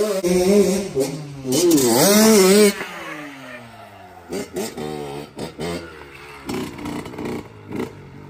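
Honda CR80 single-cylinder two-stroke dirt bike engine revving hard, its pitch swinging up and down. After about three seconds it drops away to a quieter level, with a string of short throttle blips as the bike is ridden.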